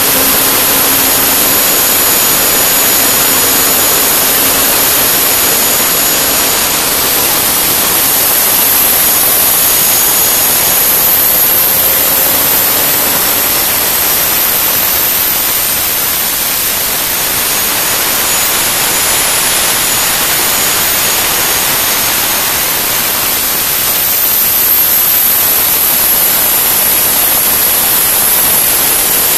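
Turbomeca Astazou 3N2 gas turbine running on a test bench: a loud, steady rushing roar with a thin high-pitched turbine whine. The whine rises in pitch about twelve seconds in and drops back again near the end.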